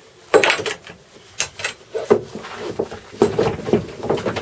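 Hands working a webbing strap and metal fittings inside an aircraft fuselage: an irregular run of knocks, clicks and rustles, thickest in the second half.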